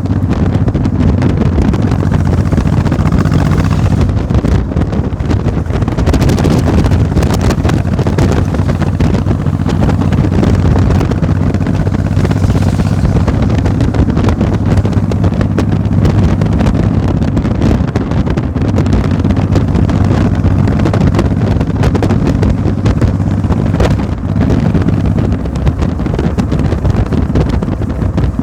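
A motor running at a steady speed, with wind buffeting the microphone.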